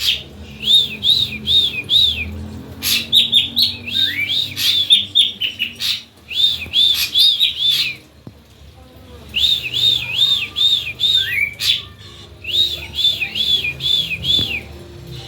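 Ashy drongo singing: about five bursts of quick, repeated arched notes, four to six in a run, with an occasional lower down-slurred note and short pauses between bursts.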